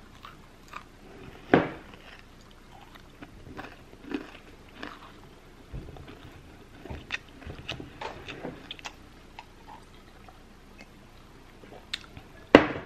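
A person biting into and chewing a homemade Oreo cream cheese cookie close to the microphone: a sharp crunch about a second and a half in, then scattered small crunches and mouth clicks while chewing, and another sharp sound near the end.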